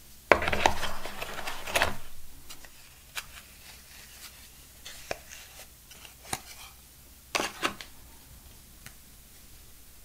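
Handling noise of phone accessories being taken from their cardboard box: a loud rustling scrape lasting about a second and a half, then light scattered taps and clicks as a charger brick and its wrapped cable are handled, with two sharper clicks near the end.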